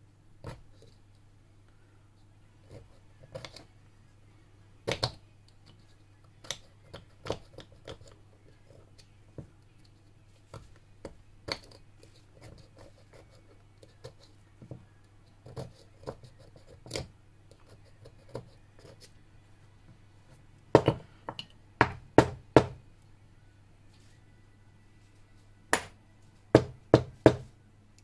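Steel parts of a dismantled Kromer Protector lock handled by hand on a table: scattered light clicks and knocks, with two runs of sharper knocks in the last third.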